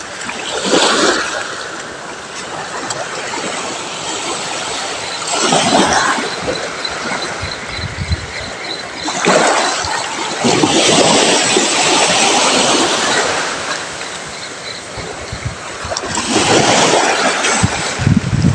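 Sea waves washing up on the shore, swelling in loud surges every few seconds and easing off between them.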